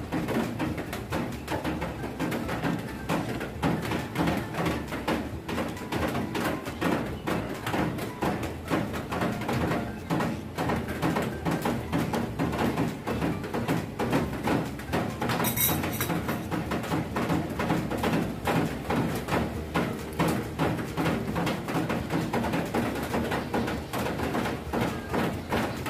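Big raindrops drumming on the roof overhead, a dense, irregular patter that goes on without a break.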